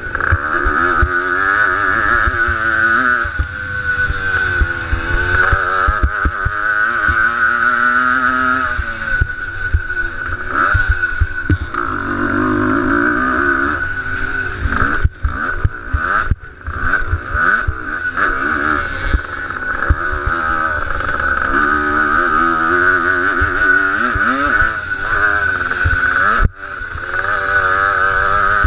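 Motocross dirt bike engine under race throttle, heard from the rider's helmet: the revs climb and fall over and over as the rider accelerates and shifts, with a few brief sharp drops in the sound past the middle and near the end.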